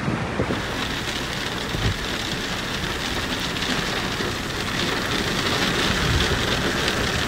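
Heavy rain driven by strong wind: a steady rushing hiss that swells slightly in the second half.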